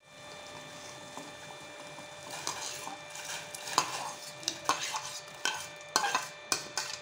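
A steel spoon scraping and tapping against a plate as washed rice is pushed off it into a steel pot of water. The sharp scrapes and clicks start about two seconds in and repeat a couple of times a second, over a faint steady hum.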